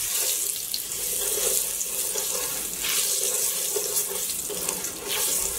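Curry powder cooking in hot vegetable oil in a stainless steel pot, a steady sizzle as a wooden spoon stirs it.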